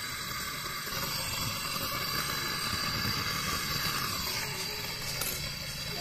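Gas brazing torch hissing steadily while it brazes a service valve onto a refrigerator compressor's copper tube. The hiss shifts slightly about four seconds in.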